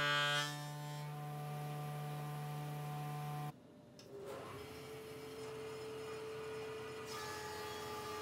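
Steady electric hum of woodworking machine motors. About three and a half seconds in it drops out briefly, then a different, higher-pitched steady hum takes over.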